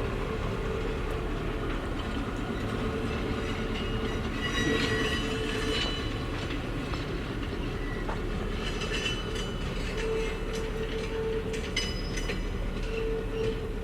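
Train rolling along the track with a steady rumble, its wheels squealing in short high-pitched stretches.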